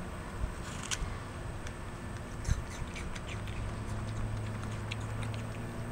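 Capuchin monkey chewing and biting into an apple: small, irregular wet crunches and clicks. A steady low hum comes in about halfway through.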